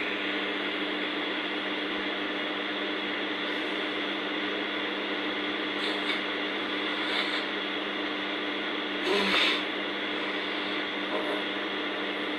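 Steady mechanical hum with a constant hiss, with a short louder sound about nine seconds in.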